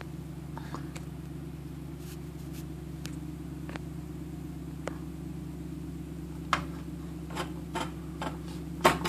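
Steady low mechanical hum, with faint scattered clicks and then a few sharper taps and knocks of tools and parts handled on a workbench in the last few seconds.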